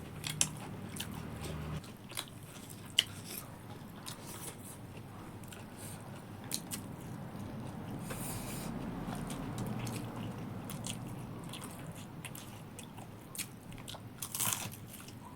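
Close-up chewing of a mouthful of singju salad with rice: crunching and wet mouth clicks, with a louder cluster of crunches near the end.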